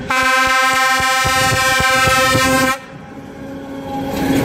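A train horn sounds one steady chord for about two and a half seconds over the rapid clicking of wheels on rail joints. It cuts off, and the rumble of a passing train then swells.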